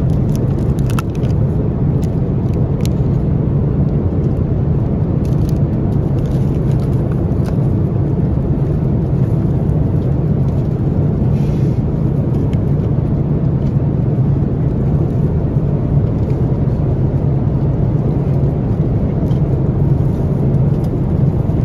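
Steady cabin noise of an Airbus A330-900neo at cruise: the low roar of its Rolls-Royce Trent 7000 engines and rushing airflow, heard from inside the cabin. A few light clicks come in the first three seconds.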